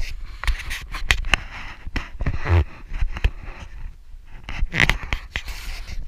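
Irregular clicks, knocks and scraping rustles of a handheld camera being moved about and bumped: handling noise.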